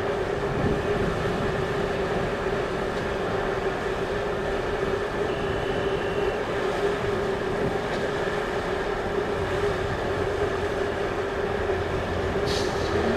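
CMB-55 catenary maintenance vehicle running slowly on rail with a steady engine drone and a constant mid-pitched hum over a low rumble, and a short hiss near the end.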